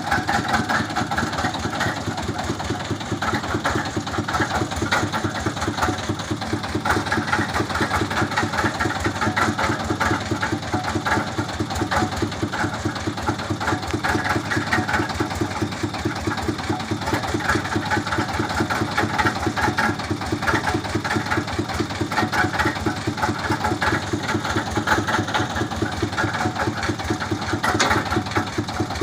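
Engine of a water-well boring rig running steadily under load, with a fast, even pulsing beat.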